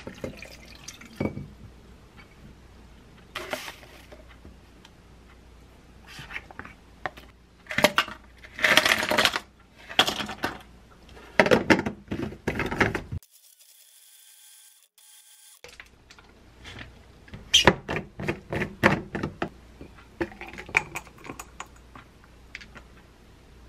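Ice cubes and tomato pieces clattering and clinking into a glass blender jar, with knocks of the jar and its blade lid being handled. The sound drops out for about two seconds midway, then a quick run of sharp clicks follows.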